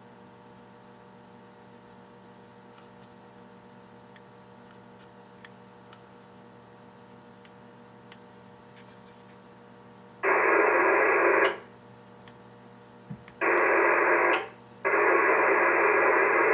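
A faint steady hum, then, from about ten seconds in, three loud bursts of radio-like static hiss, each a second or so long, that start and stop abruptly.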